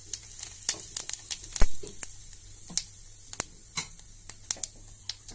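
Cumin seeds spluttering in hot oil in a wok: scattered, irregular sharp pops and crackles, the loudest about one and a half seconds in.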